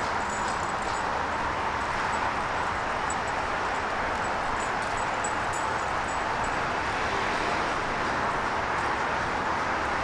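A steady outdoor rushing noise with no rhythm or pitch, and faint light crackles over it.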